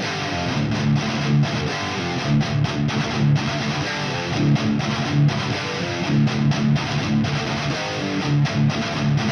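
Electric guitar played through a Peavey JSX amp head and speaker cabinet, picked up by a Gefell PM 750 microphone, playing a repeating riff that starts abruptly at the beginning.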